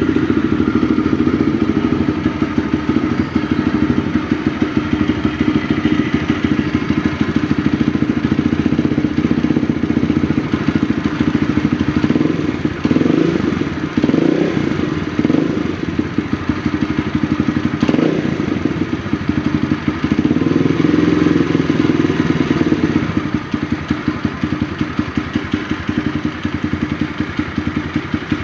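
Kawasaki KLX150's single-cylinder four-stroke engine running at a steady idle, blipped up a few times about halfway through and once more a little later before settling back to idle. There is a single sharp click in between the blips.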